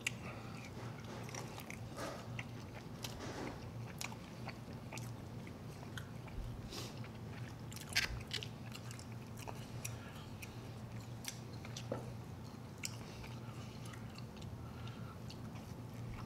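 Two people eating sauced chicken wings and bread rolls close to the microphone: steady chewing with scattered wet bites and small crunches, the sharpest about eight seconds in.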